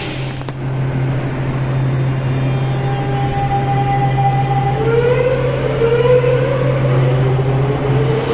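Madrid Metro train over a steady low hum, its electric traction motors whining and rising in pitch from about halfway through as it pulls away, with a second rising whine near the end.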